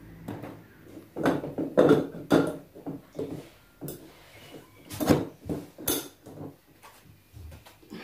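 Irregular knocks and clicks of a baby high chair's leg tubes and plastic fittings being handled and fitted together.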